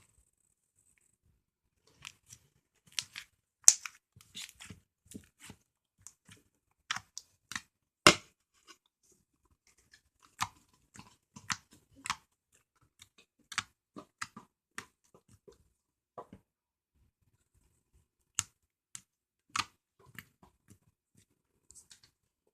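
Slime being handled and squished, giving irregular short, sharp pops and crackles with brief silences between, the loudest about four and eight seconds in.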